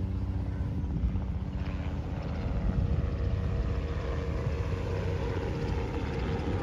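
A moving vehicle's engine and road or water noise, a steady low rumble.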